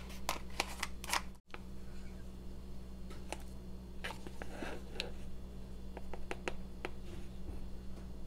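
Small clicks and taps of kitchen containers being handled on a countertop: a spice jar's top opened and a plastic measuring spoon scooped into cinnamon powder. There are a few sharp clicks in the first second, then scattered light clicks and rustling, over a steady low hum.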